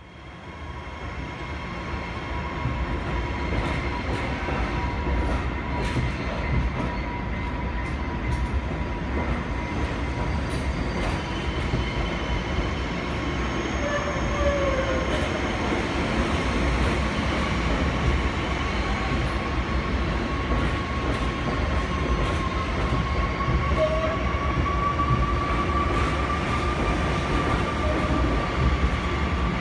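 Bombardier MR-90 electric multiple unit humming beside the platform: a steady low rumble with a thin, constant whine, the whine rising a little in pitch past the middle. It fades in over the first couple of seconds.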